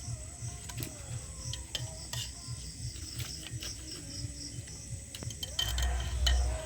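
Metal kitchen utensils clinking and scraping against cookware in scattered sharp clicks, over background music, with a louder, rougher stretch about a second before the end.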